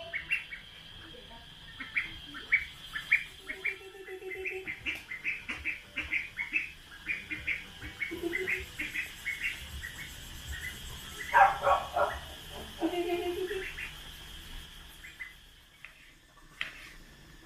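Young duckling peeping over and over, a quick run of short high chirps several times a second, stopping near the end.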